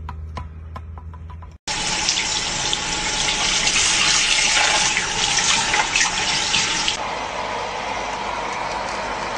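Water running steadily from a tap into a sink, starting after a short break about a second and a half in. Before that, soft plucked music. The rushing changes and softens a little about seven seconds in.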